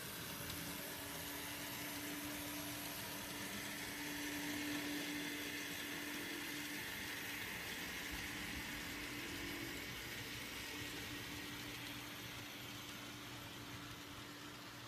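N scale model freight train running along the track, pulled by an Inter Mountain EMD SD40-2 and an Atlas C-630 model locomotive: a steady electric motor hum with the hiss and rattle of small wheels on rail, growing a little louder about four seconds in as the train passes.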